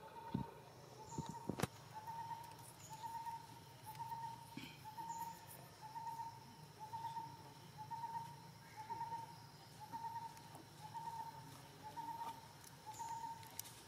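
A wild animal's call: one short note at a steady pitch, repeated very evenly about three times every two seconds. A few sharp clicks come in the first two seconds, the loudest about one and a half seconds in.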